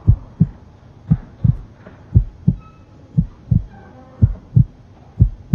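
Heartbeat sound effect: deep double thumps, lub-dub, repeating steadily about once a second, six beats in all.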